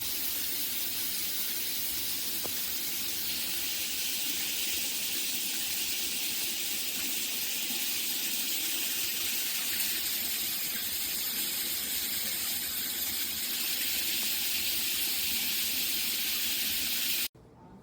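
Shower head spraying water in a steady hiss that cuts off suddenly near the end.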